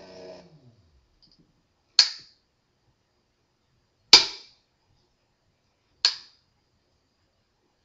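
An Etek brushless motor's whine falls in pitch and dies away as the motor coasts to a stop in the first second. Then come three sharp clicks, each with a short ring, about two seconds apart.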